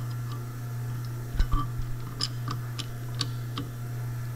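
Light metallic clicks and taps as a bearing race is worked into a Bonfiglioli final drive gearbox housing against its caged ball bearings, with one sharper knock about a second and a half in. A steady low hum runs underneath.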